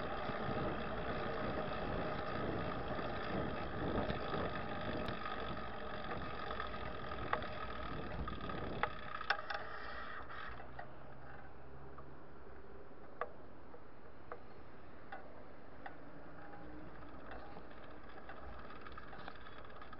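City street traffic heard from a moving bicycle: car engines running close by, louder in the first half, then a quieter steady hum of road noise with a few scattered sharp clicks.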